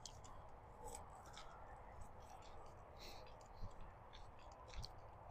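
Faint outdoor quiet with scattered soft ticks and clicks, and two low thumps about a second apart past the middle.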